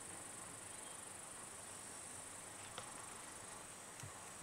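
Steady high-pitched insect chirring, with a couple of faint clicks about three and four seconds in.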